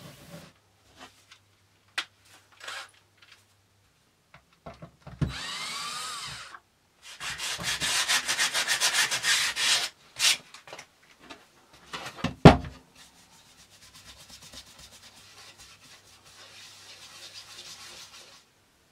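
A hand brushing and rubbing sawdust off an MDF board with a freshly routed circular groove. It comes in quick, rhythmic rubbing strokes in the middle and fainter brushing near the end. Wooden knocks and a short scrape come in between, the loudest a single sharp thump about two-thirds of the way through.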